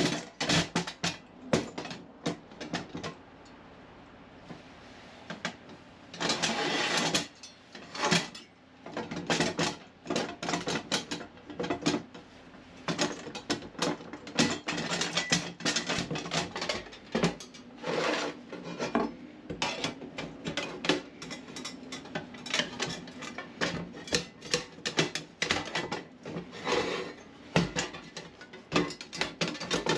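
Pieces of 2.3 mm steel plate knocking and scraping against each other: many irregular clanks, with a couple of longer scrapes.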